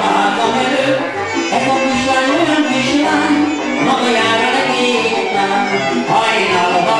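Live Hungarian nóta (folk-style song): a Gypsy band led by violins playing, with a man singing over it.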